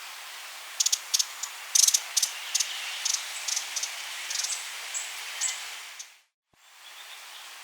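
Broad-billed hummingbird calling: over a dozen short, high chips in an uneven series over steady hiss. Near the end the sound fades out briefly before the hiss resumes.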